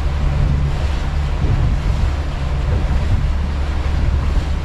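Steady low drone of a Ranger Tugs R25's engine running under way, heard from inside the cabin, with the wash of water and waves against the hull.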